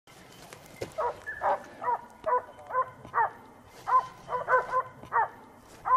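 Hunting dog barking in quick, high-pitched yelps, about a dozen of them a half second or so apart, as it chases a wild boar.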